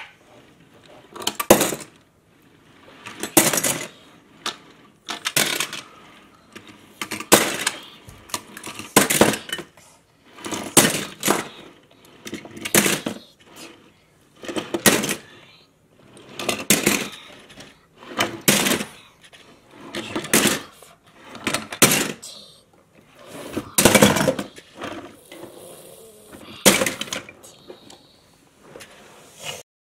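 Die-cast metal toy cars clacking as they are handled and set down one after another, a sharp knock or clatter every second or two.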